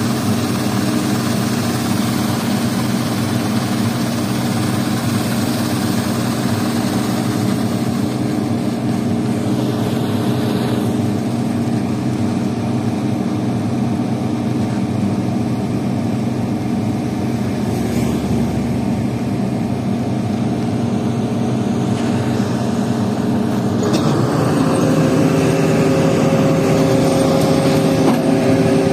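Heavy diesel engine of bridge-construction machinery running steadily. About 24 seconds in, its note rises and it gets louder, as the engine picks up revs.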